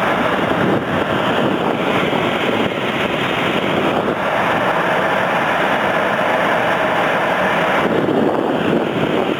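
Air rushing past the microphone inside a mobile-home furnace's fresh air adder duct, drawn in by the running furnace blower: a steady, loud rush of air.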